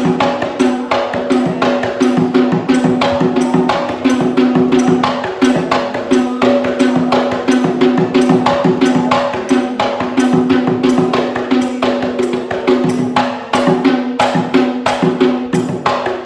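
Small Sri Lankan rabana frame drums struck in a fast, dense, continuous rhythm, with a held tone ringing underneath the strikes.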